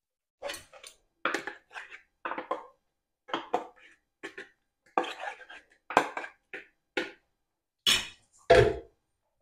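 Kitchen handling sounds: a run of short, uneven knocks and clatters as bowls and utensils are moved about on a counter, the heaviest knock near the end.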